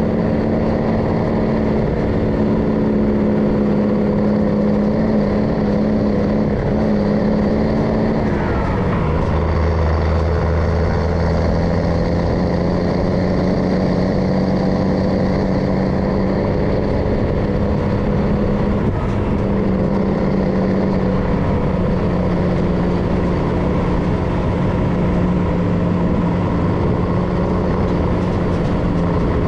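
MAN LE280B 4x4 truck's diesel engine running steadily under way, with tyre and road rumble. About a third of the way in the engine note drops and settles at a lower pitch for the rest of the time.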